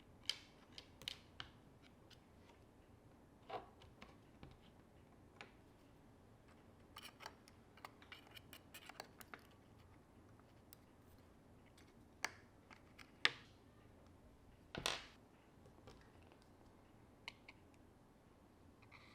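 Faint, scattered clicks and taps of small hand tools and parts against an iPhone being taken apart for repair, with two louder taps in the last third.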